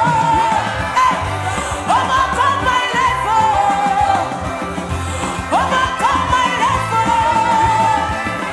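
Worship music: a band accompaniment with a pulsing low end under a singing voice that holds long notes and scoops up into them every couple of seconds.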